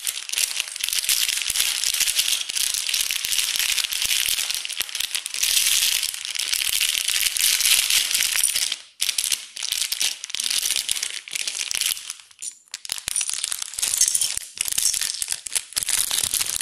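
Plastic LEGO polybag crinkling while the loose bricks inside rattle and clatter, shaken and tipped out onto a hard tiled floor. The rattling goes on in long runs, with two short lulls.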